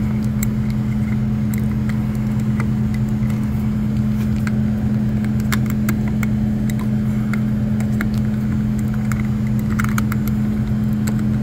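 Steady low hum of running walk-in cooler refrigeration equipment, with scattered light clicks of a screwdriver tip against a dial thermometer's metal bezel.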